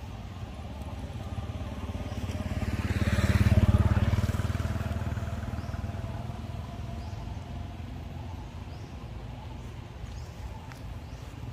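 A motor vehicle passing by: its engine grows louder to a peak about three to four seconds in, then fades away.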